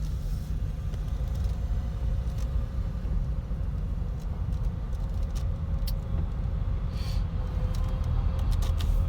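Car cabin noise while driving slowly: a steady low rumble of engine and tyres, with a few light ticks scattered through it.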